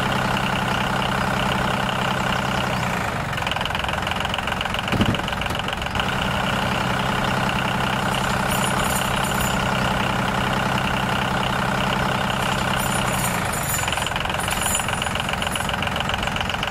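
Tractor engine running steadily with a fast even chug. The low part of its note drops away for a few seconds about three seconds in, then returns.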